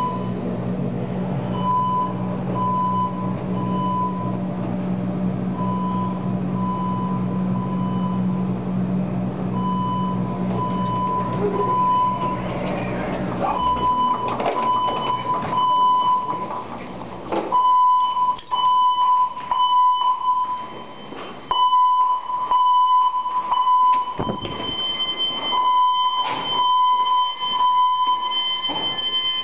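Fire alarm bell of a Mircom FA-1000 system ringing in on-off pulses, about one a second, during a bell test. A low hum underneath stops about halfway through, and the ringing turns choppier toward the end.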